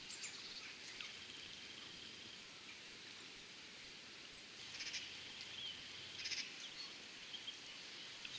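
Faint riverside background with small birds chirping now and then, and two short bursts of rapid clicking about five and six seconds in.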